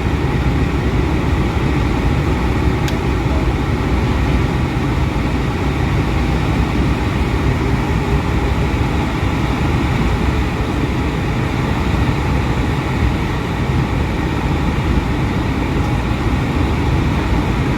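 Steady cabin noise inside an Airbus A320 in flight: the even rush of airflow and jet engines, heaviest in the low range and unchanging.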